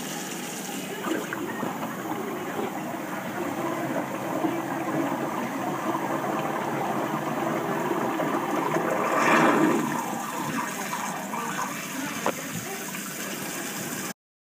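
Water draining fast down a stainless-steel kitchen sink, then a faucet stream pouring straight into the open drain; the drain runs freely, just cleared with a half-inch electric drain snake. The water swells louder about nine seconds in, there is a single short knock near the end, and the sound cuts off suddenly.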